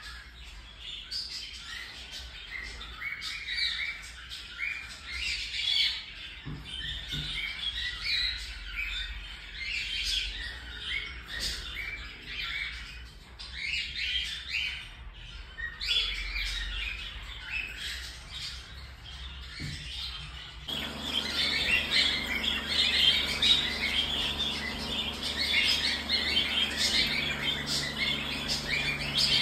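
Cockatiels chirping and squawking in many short, overlapping calls. About two-thirds of the way through the sound jumps to louder, denser chirping with a low steady hum underneath.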